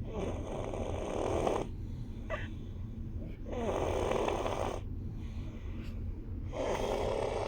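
Snoring: three long, rasping snores about three seconds apart, over a steady low rumble.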